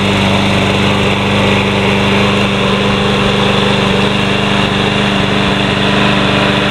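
Troy-Bilt push mower's Briggs & Stratton 675 Series 190cc engine running at a steady speed as the mower is pushed across the grass.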